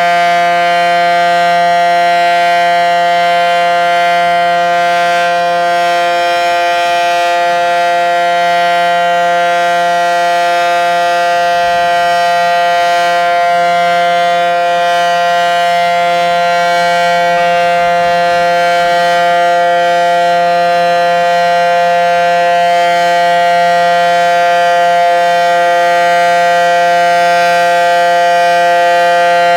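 Federal Sign & Signal SD-10 tornado siren sounding its full-alert signal during a siren test: one loud, steady tone held at a constant pitch.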